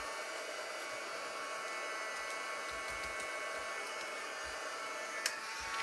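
Craft embossing heat gun switched on and running steadily, a blower hiss with a high motor whine, as it warms up before heat-setting embossing powder. One light click about five seconds in.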